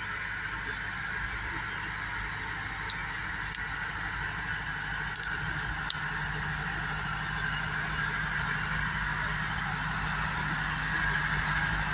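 Same orchard tractor's diesel engine running steadily under load as it pulls a rotary tiller through the soil, growing gradually louder as it comes closer.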